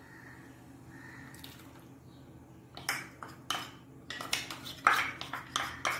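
A spoon knocking and scraping against a small bowl as corn paste is scraped out of it into a pan of boiling water: a quick run of sharp knocks and scrapes that begins about halfway through, after a faint steady hiss.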